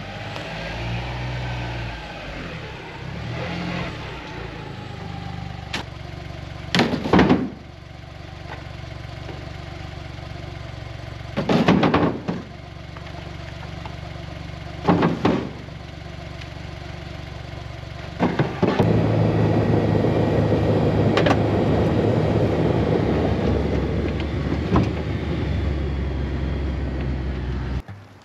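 Engine of a Tracker off-road utility vehicle running, its pitch shifting in the first few seconds and then holding steady. Wooden slab boards clatter loudly four times as they are tossed from the vehicle's bed, and a louder, denser steady noise takes over for the last several seconds.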